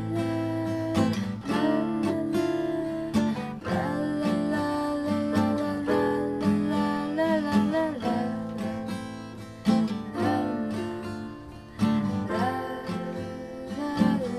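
Acoustic guitar strummed with chords on a Roland digital piano, and wordless sung notes held over them.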